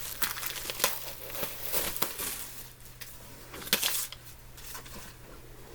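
Crisp crinkling and rustling of packaging and fabric being handled: a run of short crackles through the first four seconds, quieter near the end.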